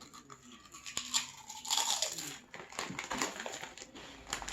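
Lay's potato chips being bitten and chewed: a run of crisp crunches, loudest about two seconds in.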